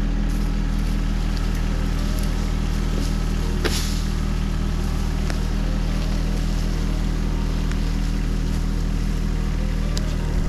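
John Deere 1025R sub-compact tractor's three-cylinder diesel running steadily under load while pulling a felled tree. There is a single sharp knock about four seconds in.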